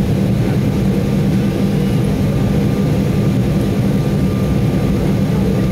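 Cabin noise inside an Embraer 190 airliner taxiing: its twin CF34 turbofan engines at taxi power and the rolling of the aircraft give a steady, loud, low rumble with a faint whine above it.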